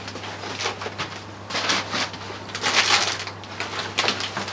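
Crushed clear plastic boot supports crinkling and crackling in several short bursts as they are picked up and handled.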